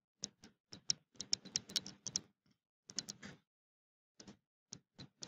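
Light, irregular taps and clicks of a stylus on a tablet screen during handwriting, coming in quick clusters for about two seconds, then a short group and a few scattered single taps.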